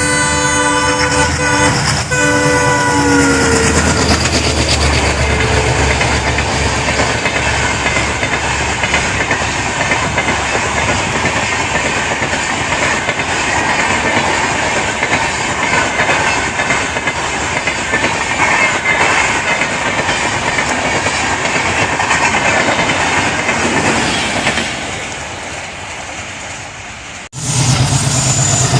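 An express train's locomotive horn sounds for about three seconds, its pitch dropping as it ends. The train then runs through at speed with a loud, steady rush and clickety-clack of wheels on rail joints, fading over the last few seconds before a sudden cut to a different steady sound.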